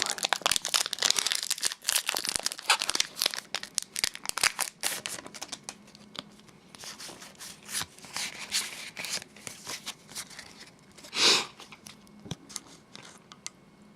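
Foil booster-pack wrapper crinkling and crackling as the freshly opened pack is handled and the cards are drawn out, dense for the first few seconds and then sparser, with one louder rustle about eleven seconds in.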